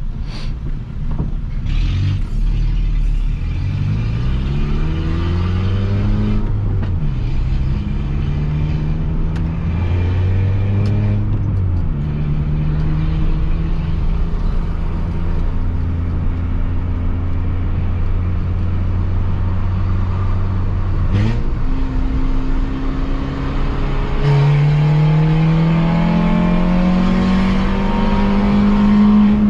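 Peugeot 206 1.4 four-cylinder engine with a straight-through exhaust pipe and no muffler, accelerating through the gears. The revs climb and drop back at each shift about 7 and 12 seconds in, hold steady at a cruise, then climb again louder in the last few seconds.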